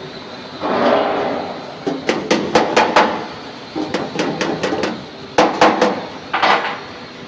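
Metal being hammered in quick runs of strikes, with bursts of scraping and clattering metal between the runs.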